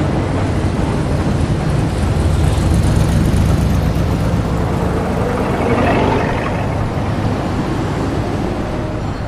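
1920s-style city street ambience: a steady low rumble of motor traffic. A brief louder noise swells about six seconds in.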